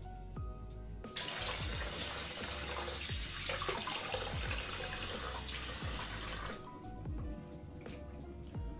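Bathroom tap running into a sink for about five seconds, turned on about a second in and off near six and a half seconds, as a face cleanser is rinsed off. Background music with a steady beat plays throughout.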